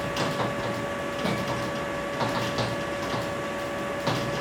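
Writing on a lecture board: a series of irregular short taps and strokes, the sharpest near the end, over a steady electrical whine.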